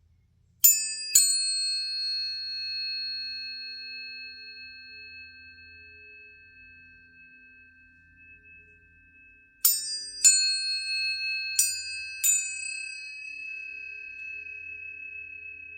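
Planetary tuning forks struck and left ringing with pure, sustained tones. Two strikes come close together near the start and ring slowly down; about ten seconds in, four more strikes follow in quick succession and ring on.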